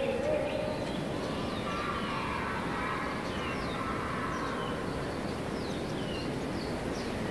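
Natural outdoor ambience: a steady background hiss with faint, high, downward-sliding bird chirps repeating throughout, and a brief low call right at the start.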